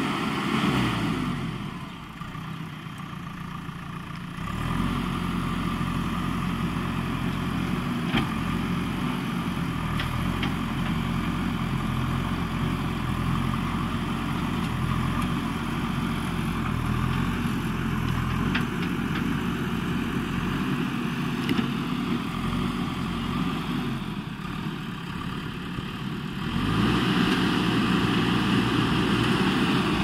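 JCB backhoe loader's diesel engine running and revving as it works, settling to a lower, quieter note twice, just after the start and again about three-quarters through. A few sharp clanks break through.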